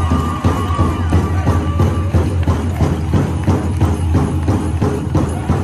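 Powwow drum song: a large drum struck by several drummers in a steady beat of about three to four strokes a second, with high sung voices that drop out about two seconds in while the drumbeat carries on.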